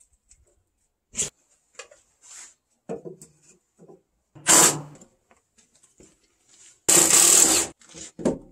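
Cordless drill driving screws into wood in short runs. The two loudest runs come about halfway through and near the end, each under a second long, with scattered knocks and handling noises between them.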